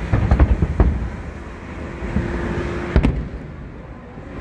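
Fireworks going off: a quick run of bangs in the first second and one more sharp bang about three seconds in, over a steady background of crowd and outdoor noise.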